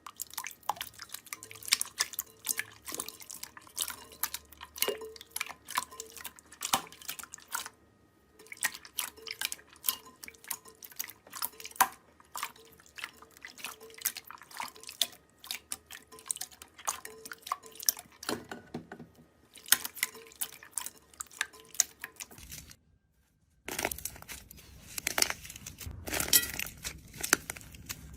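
Slime being squeezed and worked close to the microphone: a dense, irregular run of small wet clicks and pops. About 23 seconds in it breaks off briefly, then resumes as louder, fuller crackling handling.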